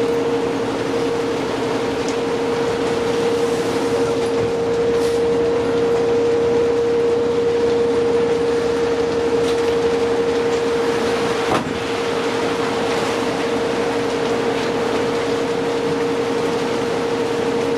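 Inside a New Flyer D60LFR articulated diesel bus under way: steady running noise with a constant droning tone over road noise. A single click about halfway through.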